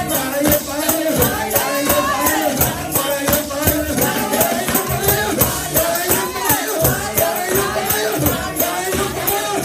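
Live gospel praise music: voices singing over percussion keeping a quick, steady beat of about four strokes a second.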